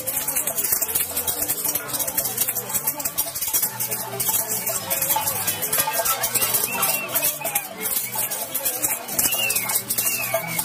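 Festival street music with a steady fast rattling and the many voices of a large crowd; a short high wavering tone sounds near the end.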